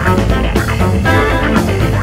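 Background rock music led by guitar over bass, loud and steady with a regular beat.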